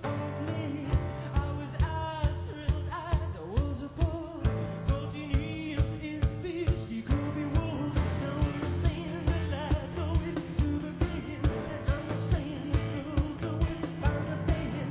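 Indie rock band playing live, with singing over a steady drum beat of about two hits a second; the singing is clearest in the first half.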